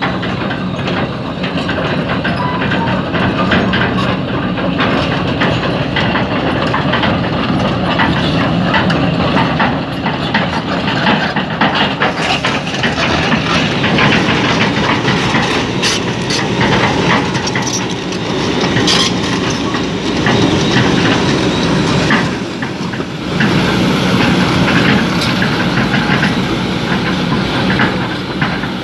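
Hydraulic excavator working in sand and rock: loud, steady diesel engine running with a continual clatter of knocks and rattles, easing briefly about three-quarters of the way through.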